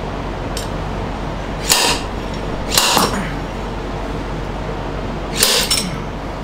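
Bearing puller being wrenched down on a stuck rear housing bearing of an NSG370 six-speed transmission, giving three sharp metallic cracks as the bearing and puller jaws shift under heavy load, over a steady background hum.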